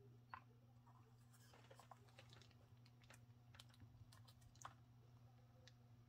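Faint, scattered small clicks and scrapes of a screwdriver turning an O-ring-fitted grip screw into a G10 pistol grip panel, over a low steady hum.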